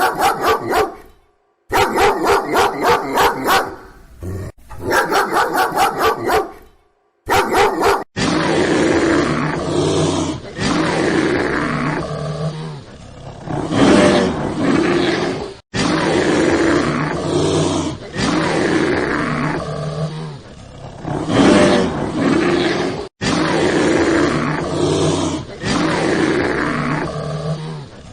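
Animal calls: a quick run of short repeated calls, about four a second, then, after a cut about eight seconds in, a lion's long low roars and growls that rise and fall, peaking every few seconds.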